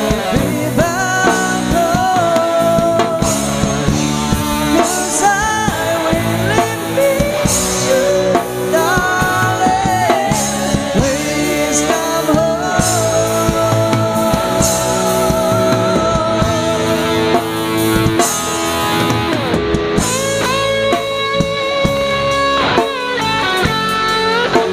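Live rock band playing a slow ballad: electric guitars, bass and drum kit, with a man and a woman singing. A lead electric guitar line stands out near the end.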